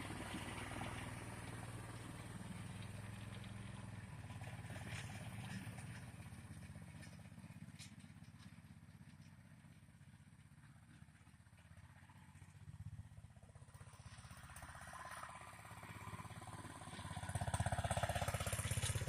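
Homemade tractor's single-cylinder Honda GX engine running as it drives, fading gradually, then louder again near the end with the pitch rising as it revs up.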